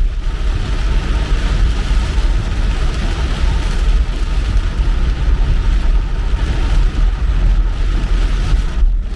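Car driving on a wet road in the rain: a steady low rumble of engine and tyres with an even hiss of water spray.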